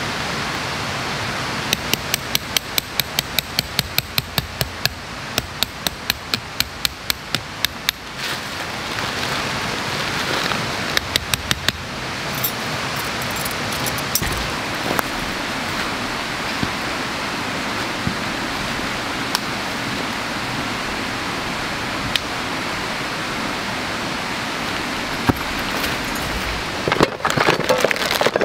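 A small hammer drives a thin metal tent stake into the ground, giving a quick run of sharp metallic taps at about three a second, then a shorter second run. Near the end there is a clatter of camping gear being handled in a crate.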